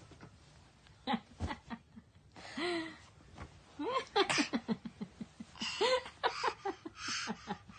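A toddler giggling and squealing in short high-pitched bursts, with quick runs of breathy laughter.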